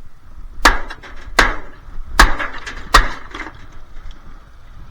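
Small hammer knocking plastic parts off a dishwasher: four hard blows about a second apart, then a few lighter knocks and rattles.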